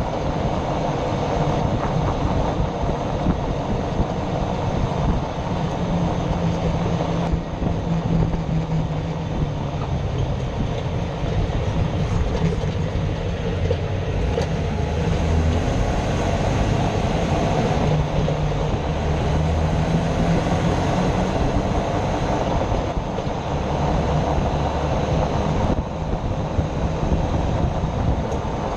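Jeep Wrangler JK heard from underneath while driving: a steady rumble of tyres and drivetrain carrying the grinding noise under investigation.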